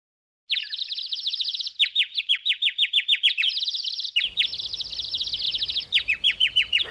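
Small bird chirping and twittering: fast trills of quick down-slurred notes alternate with slower runs of separate, evenly spaced chirps, starting about half a second in.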